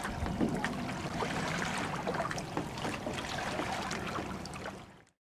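Shallow water sloshing with many small, quick splashes and drips from herring splashing at the surface. The sound fades out near the end.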